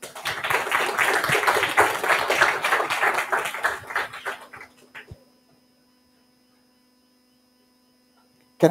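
Audience applauding, a dense patter of clapping that fades out after about four and a half seconds, leaving a steady electrical hum.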